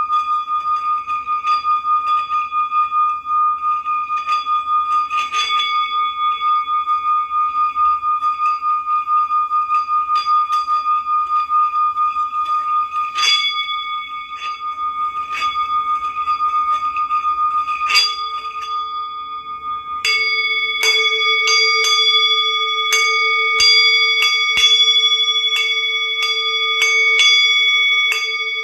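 Metal singing bowls ringing: one bowl holds a steady, pulsing tone with occasional strikes. About two-thirds of the way in, a lower-pitched bowl takes over and is struck repeatedly, several ringing tones overlapping.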